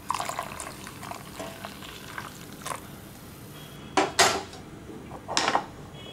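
Whisk beating a thin egg-and-milk mixture in a ceramic bowl, its wires clinking and scraping against the bowl, with louder knocks against the bowl about four seconds in and again about five and a half seconds in.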